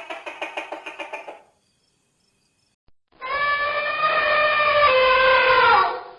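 Two farm animal calls: a short call broken into rapid pulses, then, after a pause of about a second and a half, a long held call that falls in pitch near its end.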